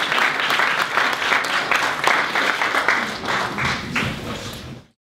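Audience applauding, a dense patter of many hands clapping that thins out over the last couple of seconds and then cuts off suddenly.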